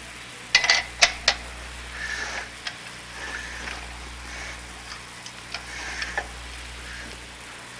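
Hands handling a partly assembled oscilloscope chassis on a workbench: a quick run of sharp clicks in the first second or so, then softer scraping and light taps. A steady low hum runs underneath.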